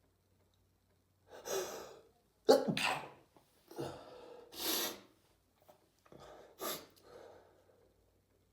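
A person sneezing repeatedly, each sneeze preceded by a breathy in-breath. The loudest sneeze comes about two and a half seconds in, and two more follow.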